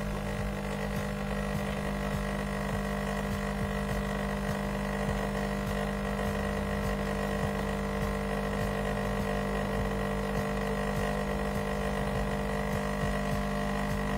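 Krups Intuition Preference (EA873810) bean-to-cup coffee machine running, a steady motor hum with a fixed pitch.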